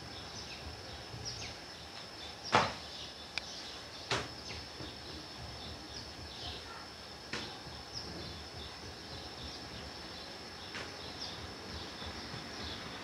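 Quiet room ambience: a background hiss with a steady high whine and faint high chirps, broken by a handful of sharp knocks, the loudest about two and a half seconds in.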